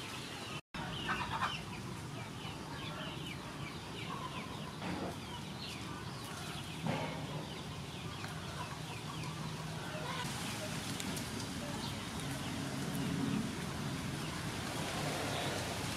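Chickens clucking, with short calls through the first few seconds and lower pitched clucks later on. Near the end, basil plants rustle as leaves are picked by hand.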